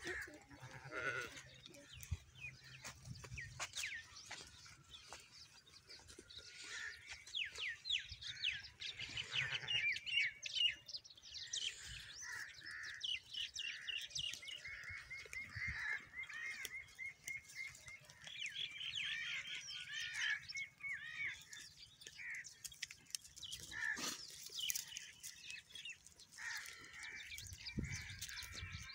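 Goats and sheep grazing, with small crunching and tearing clicks as they crop dry grass, and a short bleat about a second in. Small birds chirp and trill throughout, in quick runs of repeated notes.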